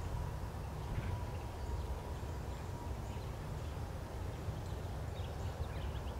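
Outdoor ambience: a steady low rumble with faint, scattered bird chirps that become more frequent about five seconds in.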